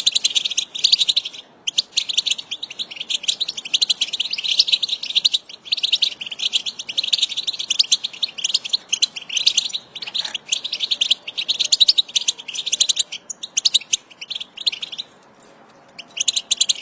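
A flock of European goldfinches twittering: a dense, continuous stream of rapid high chirps and trills from many birds. It drops out for about a second and a half near the end, then starts again.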